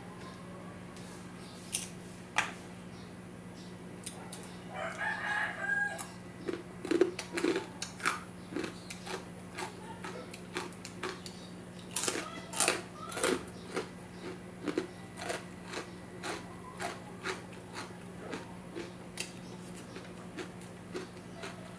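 Crisp deep-fried pork chicharon crunching as it is chewed close to the microphone, in many quick sharp crackles. A rooster crows once in the background about five seconds in.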